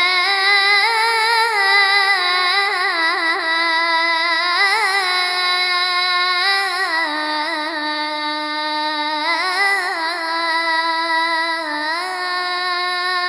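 A boy's voice chanting the Islamic call to prayer (adhan): one long unbroken melisma, holding notes and stepping between them with wavering ornaments.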